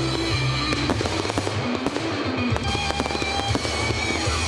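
Fireworks display: many shells bursting in quick succession with dense crackling, over music playing underneath.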